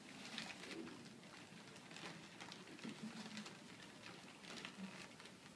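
Faint, irregular crinkling and rustling of a crumpled-paper puppet as several hands move it, with light taps as it touches the tabletop.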